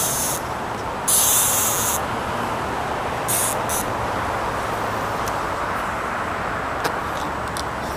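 Steady rushing background noise, with a few short bursts of high hiss in the first half and faint clicks near the end.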